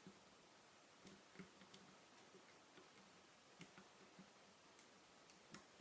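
Faint, irregular small clicks and taps of a lock pick working the pin stacks of a Mul-T-Lock MT5 pin-in-pin cylinder, about a dozen in all, none steady in rhythm.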